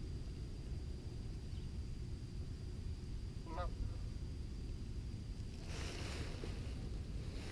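A single short honking bird call, likely from a waterfowl, a little past the middle, over a steady low outdoor rumble. A brushing rustle comes in near the end.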